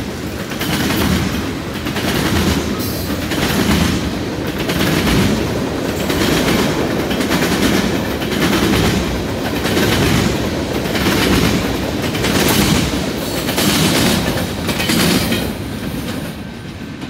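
Freight train's tank cars rolling past, steel wheels clacking over the rails in a steady rhythm about once a second, easing off near the end.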